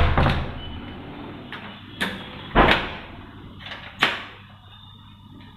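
Wooden front door being closed and locked: its surface-mounted rim lock clicking several times as the knob and bolt are worked, with a heavier knock about two and a half seconds in.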